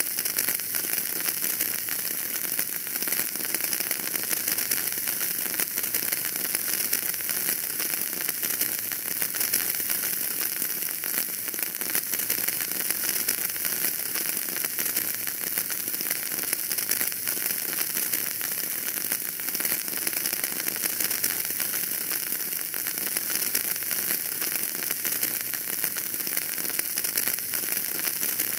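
Wood fire burning in a fireplace, crackling steadily with a dense run of small pops over a constant hiss.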